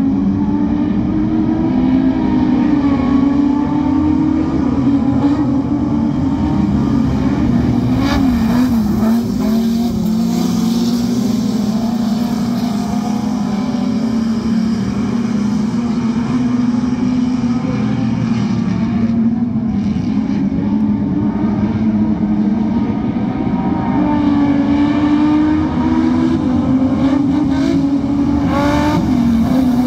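Dirt-track speedway race cars racing, their engines running hard without a break, the engine note rising and falling as they work around the oval.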